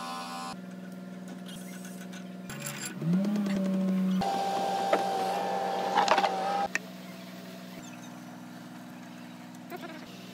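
Heavy machinery running with a steady hum. About three seconds in, a motor spins up to a higher, louder pitch and a steady high whine joins it. Both cut off abruptly a few seconds later, leaving the lower hum.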